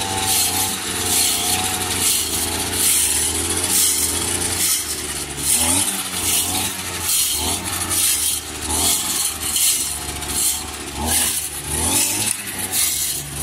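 Petrol brush cutter running steadily while its metal blade chops dried grass into chaff, with a rasping surge about once a second as it sweeps through the pile.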